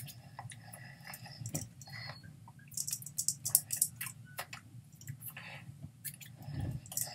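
Scattered soft clicks, taps and mouth smacks from a person signing, hands brushing and tapping together, over a low steady hum. The clicks are thickest about three to four seconds in.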